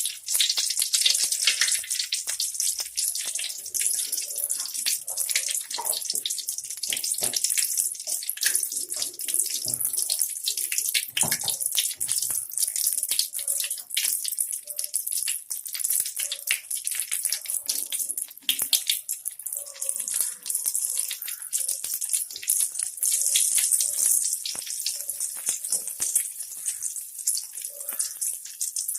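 Mustard seeds spluttering in hot sesame oil: a steady sizzling hiss with many quick crackles and pops. This is the tempering stage, with the oil hot enough to burst the seeds.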